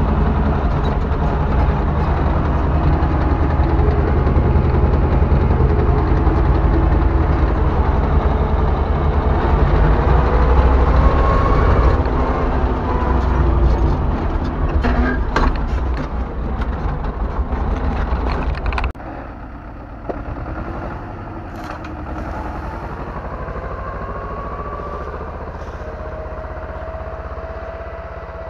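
T-25 tractor's two-cylinder air-cooled D-21 diesel running loud, heard from inside the cab while driving. About two-thirds of the way through the sound drops suddenly to the same tractor heard from across the field, quieter, as it pulls a plow through the soil.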